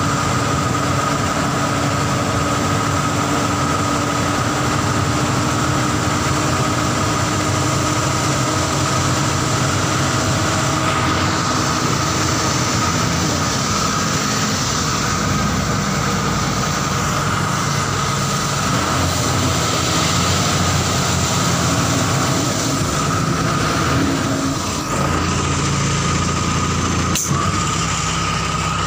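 Tata 2518 tipper truck's diesel engine running steadily, heard from inside the cab, with a steady high whine over it while the tipper body is raised to unload. There is one sharp click near the end.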